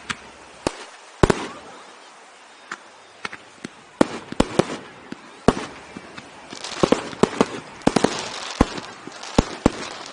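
Fireworks going off, a display of aerial shells: scattered sharp bangs at first, thickening in the second half into a dense volley of rapid bangs and crackling.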